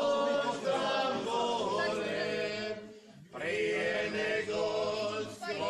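A group of voices singing together in a slow, chant-like style, with held notes and a short break about three seconds in.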